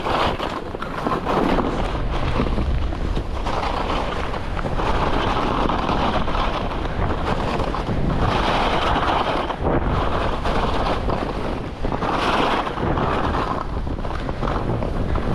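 Wind buffeting the microphone of a moving skier, over the scrape of skis on snow that swells and fades every few seconds.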